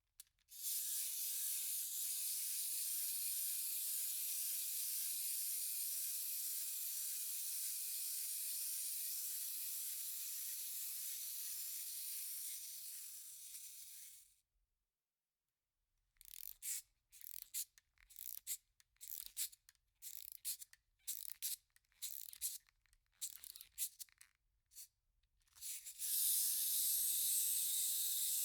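Cartoon wind-up toy sound effect: a steady high whirr of the toy's clockwork runs for about fourteen seconds and fades out. After a brief silence comes a string of short, uneven bursts, and the steady whirr starts again near the end.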